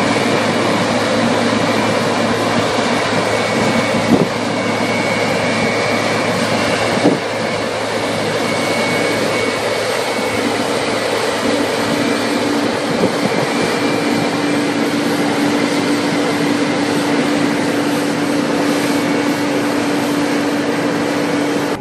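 Oxbo pea combine running steadily: a loud machine drone with a held hum and a high whine, and two brief knocks about four and seven seconds in.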